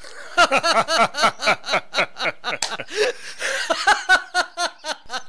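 A person laughing: a long run of quick, breathy pulses, about five a second.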